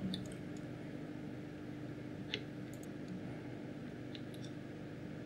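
Soldering iron melting rosin-cored solder onto a wire joint: a handful of faint, small ticks and crackles from the flux, the clearest about halfway through, over a steady low hum.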